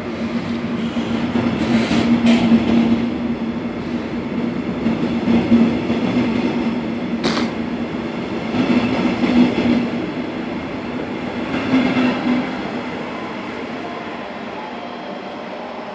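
Red double-deck regional train passing close by and pulling away: a steady hum over the wheels' running noise, with a few sharp clicks about two seconds in and again about seven seconds in. The hum fades out about three quarters of the way through as the train recedes.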